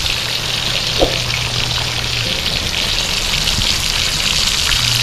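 Milkfish (bangus) steaks frying in a pan of hot oil: a steady sizzle full of small crackles, with one sharper pop about a second in.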